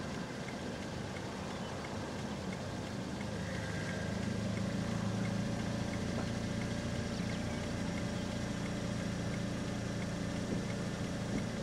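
Car engine running steadily, a low hum that grows slightly louder about four seconds in.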